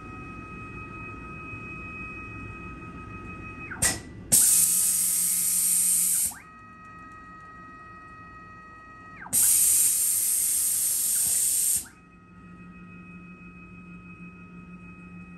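A CNC mill's axis stepper motors whine at a steady pitch, sweeping up and down as each move starts and stops, during an automatic tool change. Twice, after a click, a loud hiss of compressed air lasts about two seconds while the spindle drops off one tool at the rack and picks up the next.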